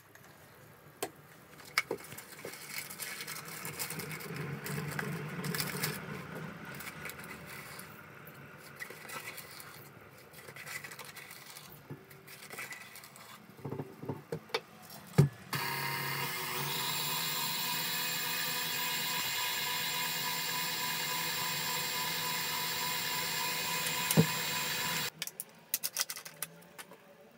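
Stand mixer running steadily with its wire whisk for about ten seconds, whipping cream and mascarpone, then switched off suddenly. Before it starts there are scattered clicks, small knocks and scraping at the steel bowl.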